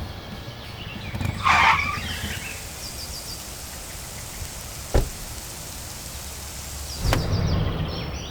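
Cartoon sound effects of a car breaking down: engine noise, a short screeching burst about a second and a half in, then a steady hiss with a sharp knock midway, and the hiss cutting off with another knock near the end.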